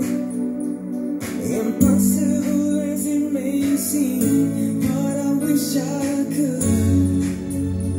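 A song with a singing voice over instrumental backing and regular cymbal ticks, played back from a CD through a vintage Yamaha stereo amplifier and loudspeakers; a fuller bass line comes in near the end.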